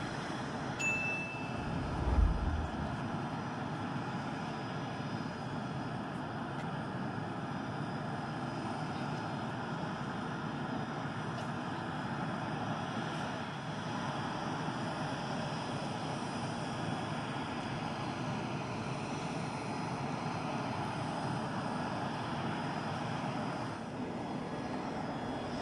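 Steady aircraft engine noise holding at one level, with no rise or fall. A short high beep sounds about a second in, and a low thump about two seconds in.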